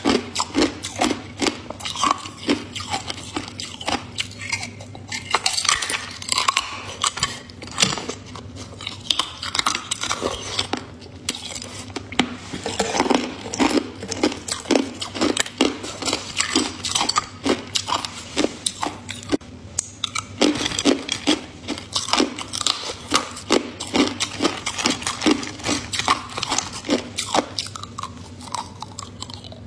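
Ice being bitten and chewed close to the microphone: a dense, irregular run of sharp crunches, several a second.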